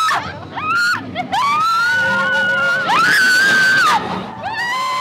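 A woman screaming on a roller coaster: a run of long, held screams one after another, the highest and loudest about three seconds in. The screams are picked up close on a wireless clip-on mic she is wearing.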